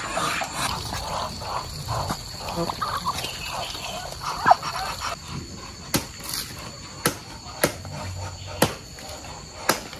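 Chickens clucking, then a knife chopping green bananas off the bunch's stalk: five sharp cuts about a second apart, starting about six seconds in.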